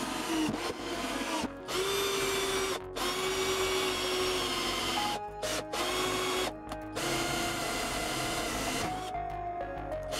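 Electric drill-driver running in short runs of a second or two, driving screws into wood and drilling holes through plywood. Its motor whine holds a steady pitch and dips briefly as it speeds up and slows down between runs.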